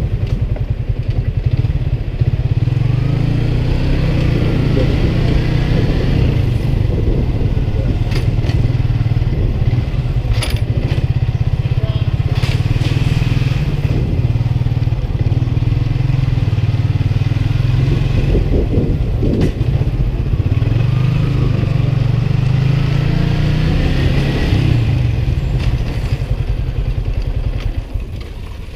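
Motorcycle engine running while the bike is ridden, heard from the rider's position, with its pitch rising and falling through the ride; it gets quieter near the end as the bike slows.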